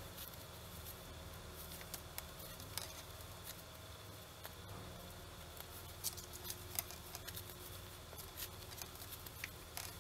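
Knitting needles clicking and rubbing faintly as stitches are knitted, a few irregular soft ticks over a low steady hum.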